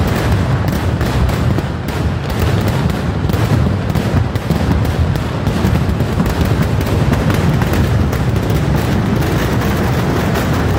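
Kerala temple-festival fireworks (vedikkettu): a dense, unbroken barrage of firecracker explosions, countless bangs merging into one continuous rumbling crackle.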